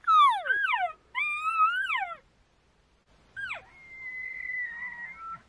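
Elk calling during the rut: two loud squealing calls, the first sliding steeply down and the second rising then falling. Then, after a pause, a quieter call drops into a long, steady high whistle and ends on a short lower note, like a bull's bugle.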